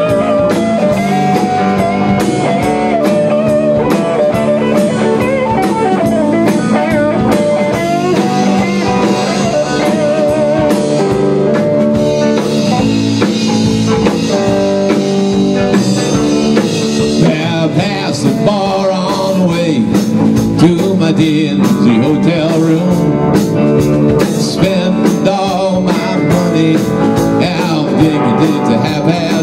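A live band playing a blues-rock number at full volume: two electric guitars, bass guitar and a drum kit.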